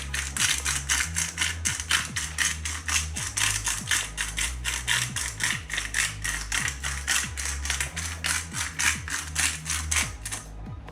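Hand-twisted spice grinder grinding black pepper: rapid ratcheting clicks, about five or six a second, stopping near the end. Background music plays underneath.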